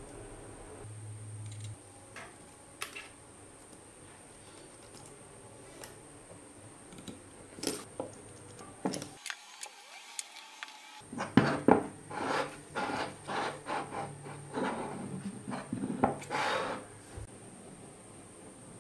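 Hands handling and assembling a miniature four-cylinder model engine: scattered clicks, taps and rubbing of small metal parts as pieces such as its legs are fitted, busier in the second half. A brief silent break comes about nine seconds in.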